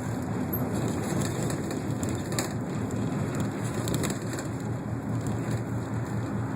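Inside a moving city bus: steady engine and road rumble with light rattling, and a couple of sharper clicks or rattles about two and a half and four seconds in.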